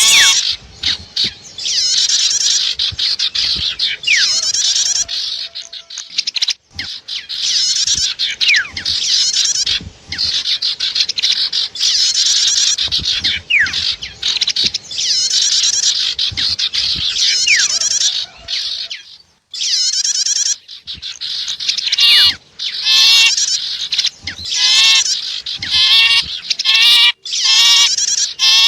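Bird-lure recording mixing calls of the sipu and the prenjak (bar-winged prinia): fast, high-pitched chattering phrases repeated over and over with short pauses. About two-thirds of the way through, a run of sharper repeated chirps takes over.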